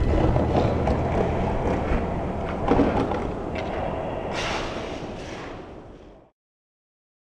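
Rumbling noise with a few knocks and a louder burst of hiss about four seconds in, fading out to silence about six seconds in.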